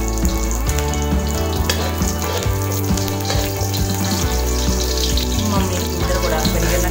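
Curry leaves and garlic sizzling steadily as they fry in hot oil in a wok, over background music with a steady bass line.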